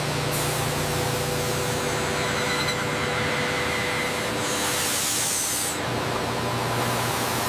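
Metal-cutting machine running steadily: a drill boring into a steel workpiece on a lathe, with a continuous hiss of cutting fluid flushing from the bore. A faint whine sounds for a couple of seconds, and the hiss turns brighter about five seconds in.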